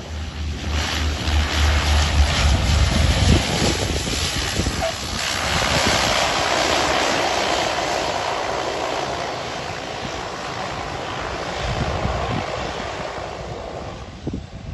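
Small twin-engine turboprop plane at takeoff power on its takeoff roll, its engines and propellers swelling to a loud, even drone, then slowly fading as it moves off down the runway. Low wind rumble on the microphone during the first few seconds.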